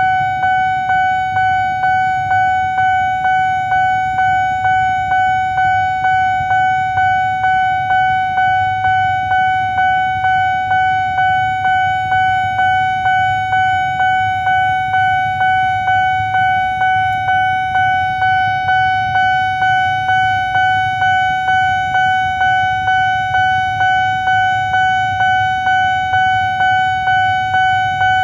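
Railway level-crossing warning bell ringing: a steady run of evenly spaced electronic dings, a little under two a second, each fading before the next, signalling an approaching train. Low rumble of road traffic underneath.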